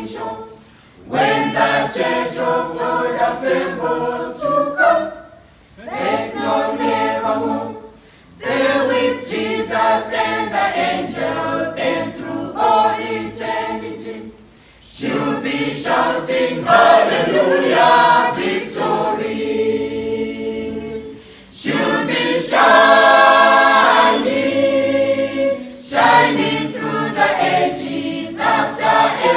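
Mixed choir of men and women singing a cappella, line by line, with short pauses between phrases.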